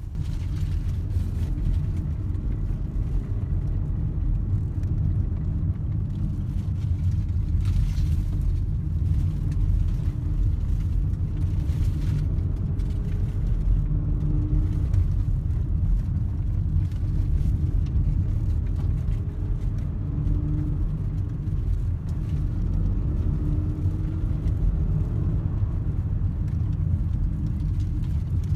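Steady low road and engine rumble inside the cabin of a 2019 Volkswagen Atlas SEL with the V6, driving along. A faint engine hum rises and falls a little as the speed changes.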